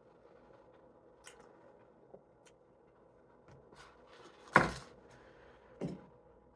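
Small clicks of someone eating and handling food close to the microphone, then a loud thump about four and a half seconds in and a smaller one just over a second later.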